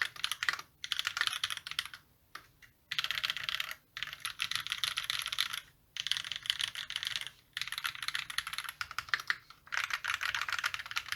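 Fast typing on an E8.5 mechanical keyboard with lubed YOK Panda tactile switches, a brass plate and GMK keycaps: rapid key clacks in runs of a second or two, broken by short pauses.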